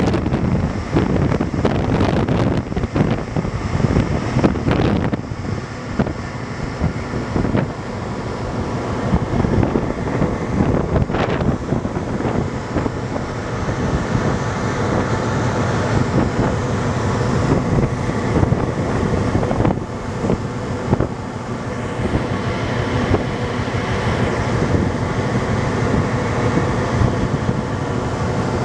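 Wind buffeting the microphone on the deck of a moving ferry, gustier in the first few seconds, over the steady low rumble of the ship's engines.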